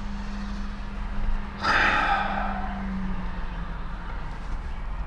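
A man's long breathy sigh begins about one and a half seconds in and fades out, over a steady low hum.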